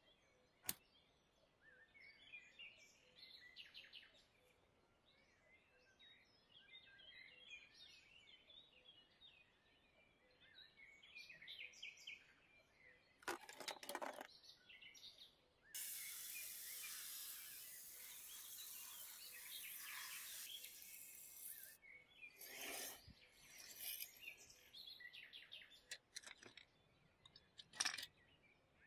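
Water streaming and dripping from a perforated metal basket of soaked parts lifted out of a soaking tank, a steady hiss for several seconds about halfway through. It comes between a metal click near the start and a few short clatters near the end, over faint birdsong in the background.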